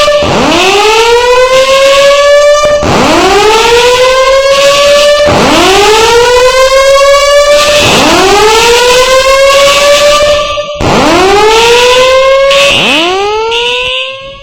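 Fire alarm sounding a loud, repeating whoop tone: each tone sweeps up quickly from low, holds near the top for about two seconds, and starts again about every two and a half seconds, six times over. It briefly dips in loudness late on and again near the end.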